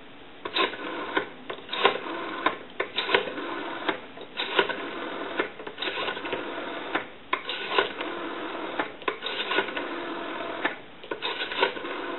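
Western Electric 500 rotary dial being wound round and released again and again. Each return is a whirring run of rapid clicks as the dial pulses out a digit, with short pauses between digits.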